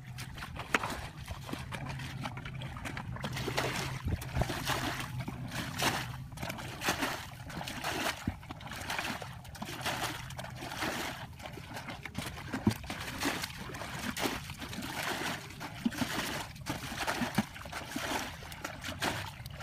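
Muddy ditch water being scooped up in plastic buckets and poured out by hand, a splash and pour every second or so, with sloshing from wading in the shallow water.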